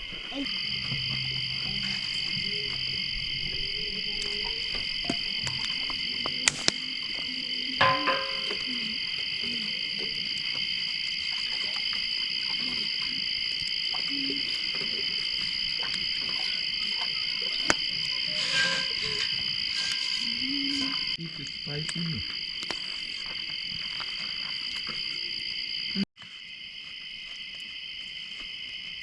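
Steady chorus of crickets, a continuous high trill. It cuts out abruptly for a moment about 26 seconds in and resumes, with a few faint clicks and knocks scattered through.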